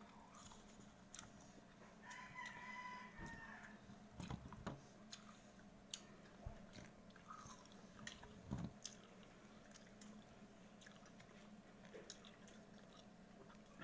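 Faint crisp chewing and biting of java apples (makopa), heard as scattered small clicks and soft bumps. About two seconds in, a rooster crows faintly for about a second and a half.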